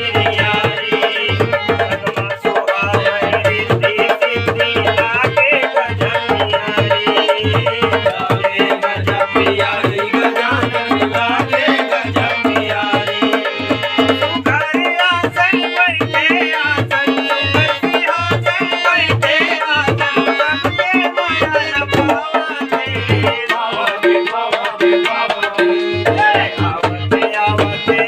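Instrumental music led by tabla playing a steady rhythm, its deep bass-drum strokes pulsing under a melodic line, with no singing. The deep strokes drop out briefly near the end.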